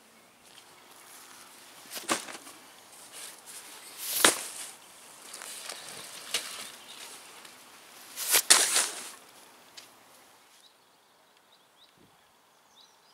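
Nylon camping bags being handled: four loud swishing rustles about two seconds apart, with softer rustles between them.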